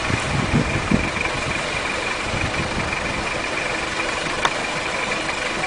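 Car engine idling steadily, with a constant high whine over it, a few low thumps in the first three seconds and a single sharp click about four and a half seconds in.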